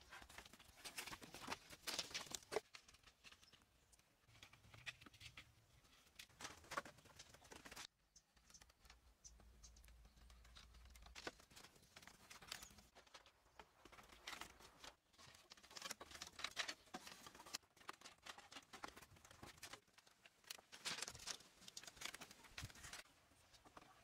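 Faint crackling, scraping and tapping of bamboo and wood as bamboo slats are lashed to a pole frame with thin strips, the strips rasping as they are pulled tight. It comes in irregular clusters of small clicks and rustles that break off abruptly several times.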